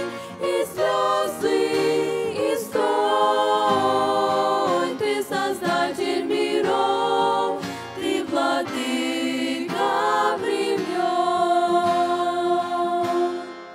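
A women's vocal group singing a Russian Christian song unaccompanied, in harmony. Near the end they settle on one long held chord that starts to fade.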